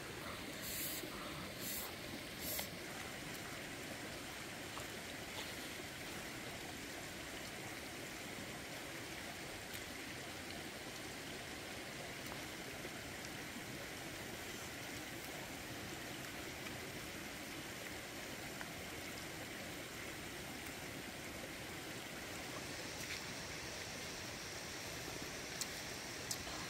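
Shallow stream running over rocks, a steady rushing. Three short, sharp clicks come in the first few seconds.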